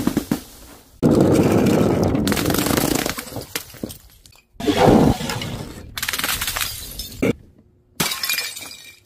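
Objects dropped from a height smashing and bursting on paving tiles, in several short clips cut together: a loud crash about a second in, another near the middle, and shorter ones later, each cut off abruptly.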